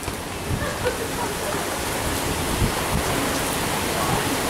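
Hurricane wind and heavy rain: a steady rushing noise of wind and driving rain.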